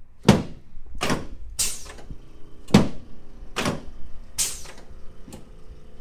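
Chiropractic lumbar adjustment: a run of about seven sharp knocks, a little under a second apart, as hands thrust down on the lower back of a patient lying face down on the adjusting table.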